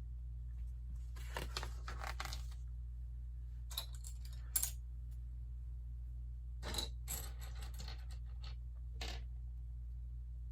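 Plastic Lego bricks being handled and pressed together: scattered rattles, rustles and sharp clicks in several short clusters, over a steady low hum.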